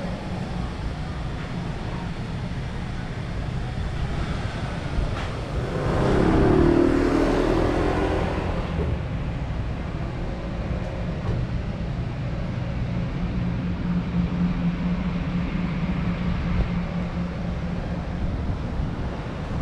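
City street ambience with road traffic running steadily. One vehicle passes close about six seconds in, the loudest moment, swelling and fading over roughly two seconds.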